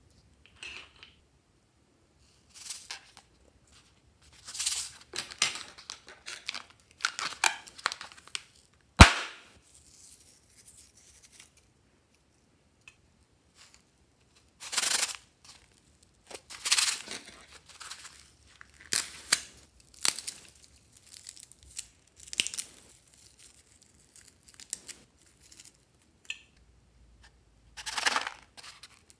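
Small filled rubber balloons being handled and snipped open over a glass bowl of glitter-topped slime: a string of irregular scratchy rustles and snips, with one sharp click about nine seconds in.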